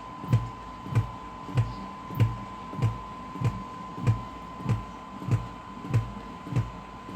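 Zebronics 5.1 home theater speakers giving out a steady high tone with a regular low thump about one and a half times a second. This is the faulty hum and distorted output of an amplifier whose power-supply filter capacitor is damaged.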